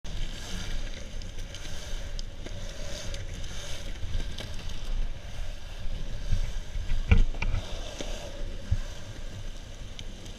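Longboard wheels rolling over concrete and asphalt, a steady rumble heard close from a camera down at board level. A few sharp clacks stand out over it, the loudest about seven seconds in.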